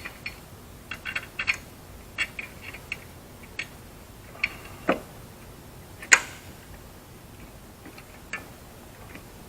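Irregular sharp metal clicks and taps from handling screws and a hand tool on a sheet-metal servo control box while it is being fastened, the loudest about six seconds in.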